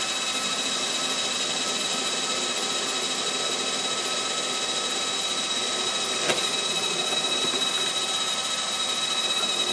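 Cordless drill running at a steady speed with a steady whine, boring a quarter-inch bolt hole down through the wooden wing of a model airplane. A single brief click about six seconds in.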